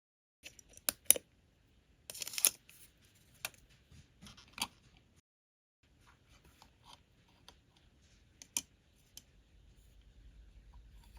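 Small plastic toy parts and packaging being handled: scattered sharp clicks and taps, with a short rustling crinkle about two seconds in.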